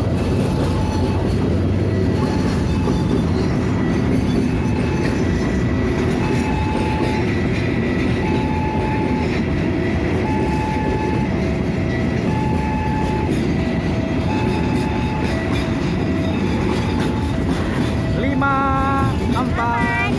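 A long train passing close by, its wagons rumbling steadily over the rails. A two-note electronic tone alternates over it about once a second.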